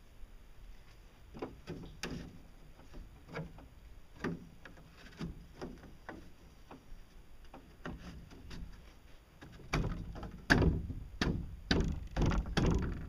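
Stiff sheet panels knocking and scraping as paddle-wheel blades are pushed by hand into their slots. There are irregular taps throughout, and a run of louder, heavier knocks near the end.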